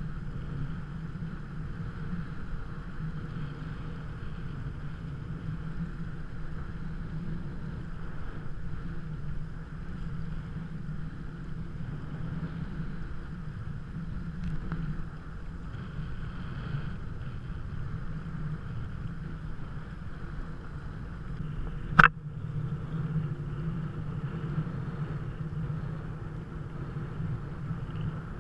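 Steady rushing noise of water and wind while riding a kite hydrofoil board. A single sharp knock about twenty-two seconds in.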